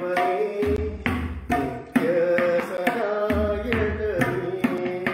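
Indian classical music: tabla strokes under a held melody line that slides between notes.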